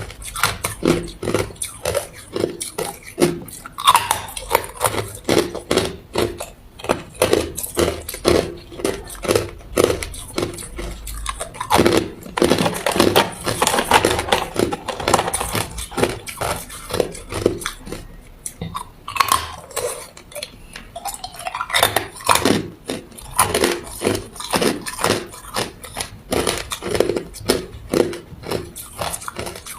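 Ice being bitten and chewed close to the microphone: a continuous run of sharp, irregular crunches, with a denser stretch of crunching near the middle.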